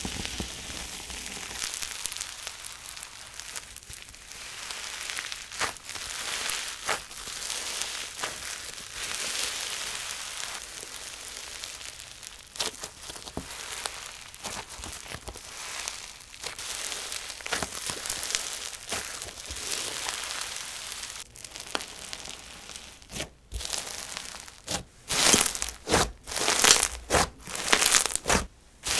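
Fingers squishing and kneading a crispy, snow-textured slime, making continuous fine crackling and crunching. Near the end the presses get louder, with sharp crackling pops as the slime is pushed against the table.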